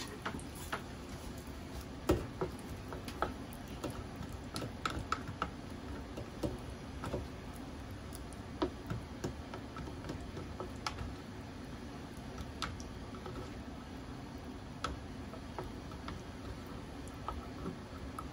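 A spatula stirring and scraping thick curry in an aluminium square mess tin, giving irregular clicks and taps, with a sharp knock about two seconds in, over the steady rush of a small gas cartridge stove burning.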